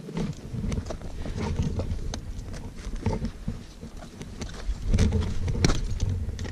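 Crampons clacking and scraping on granite and crunching in snow, irregular sharp knocks, over a low rumble of wind on the microphone.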